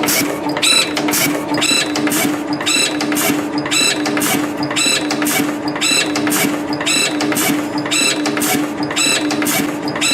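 CNC torsion spring machine running in production, forming 0.6 mm wire into springs. It gives a steady hum with a repeating cycle of clicks and ringing about once a second, one cycle per spring.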